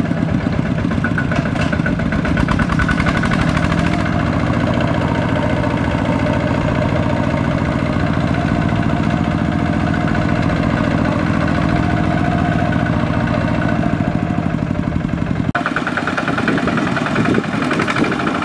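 Single-cylinder diesel engine of a two-wheel walking tractor running hard with a steady, rapid chug as it hauls a loaded trailer through sticky mud. Near the end the low chugging drops away suddenly and the engine note changes.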